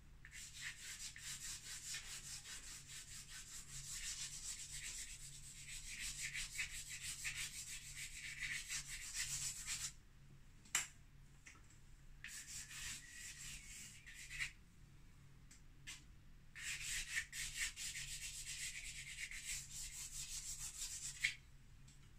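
A chalk pastel or charcoal stick scratching over a drawing board in quick, short hatching strokes, in three bursts with short pauses between them. A sharp tick about halfway through and another just before the end.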